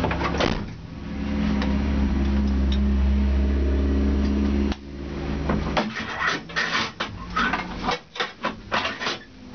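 BMW E30 race car engine running at idle, cutting off abruptly about five seconds in. It is followed by irregular clicks, knocks and rubbing inside the stripped cabin.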